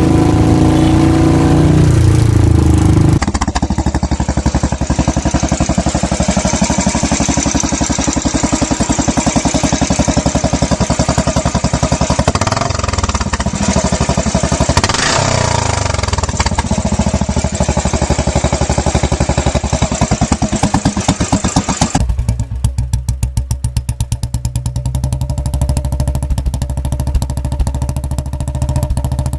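Royal Enfield single-cylinder motorcycle engine idling with an even thump through aftermarket silencers, revved up and back down a couple of times. The exhaust note changes abruptly twice as a different silencer is played.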